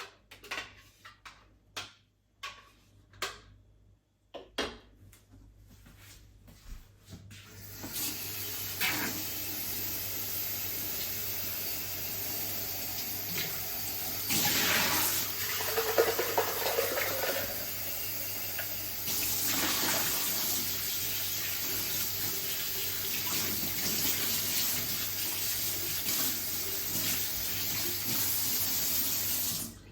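A few light clinks and knocks, like dishes being handled, then a tap running water steadily into a sink for about twenty seconds, shut off abruptly near the end.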